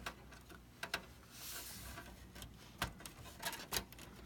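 Light clicks and taps of a PCIe adapter card and its metal bracket being handled and lined up with a slot inside a metal computer case. A soft rustle comes about a second and a half in.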